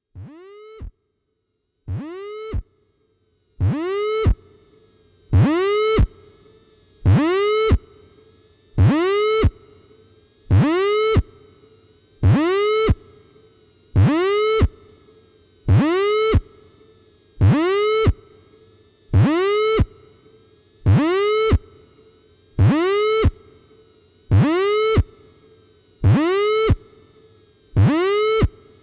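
Electronic synthesizer music: a single repeated synth note that swoops quickly up in pitch at each attack and then holds, about once every 1.8 seconds. It fades in over the first few seconds, then repeats at an even level.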